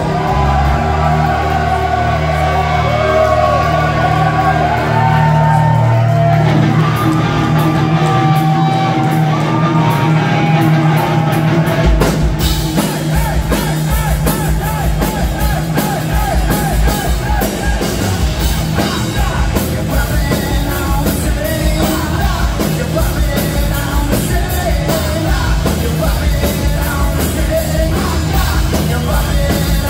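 Live rock band playing with a singer. For about the first twelve seconds held bass and guitar chords sit under the vocal; then the drums come in and the full band plays a steady, driving beat.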